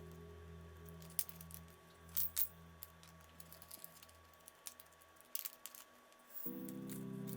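Scattered small sharp clicks and taps of screw-in keyboard stabilizers and their screws being handled and fitted to a circuit board, over soft background music that fades and then starts a new sustained chord about six and a half seconds in.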